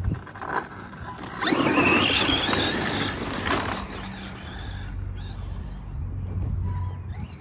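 ARRMA Mojave 4S RC truck's brushless electric motor whining up in pitch as the truck accelerates hard, with tyre scrub beneath it. After about three and a half seconds the sound drops to a quieter hum as the truck runs off into the distance.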